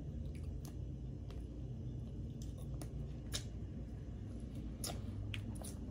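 Boiled crawfish being peeled by hand and eaten: faint, scattered clicks and cracks of shell, about nine over a few seconds, over a steady low hum.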